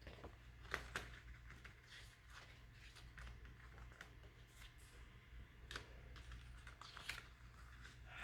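Faint, scattered small clicks and light rustles of a CD case and its packaging being handled, with the two sharpest clicks about a second in and another near the end.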